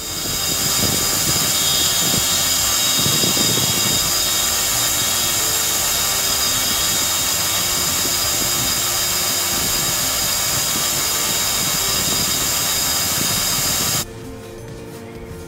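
Belt grinder running steadily, its abrasive belt on the contact wheel, as a knife handle scale is held against it to grind a texture into it, with a loud, even grinding hiss. About a second before the end it cuts off suddenly and quiet background music takes over.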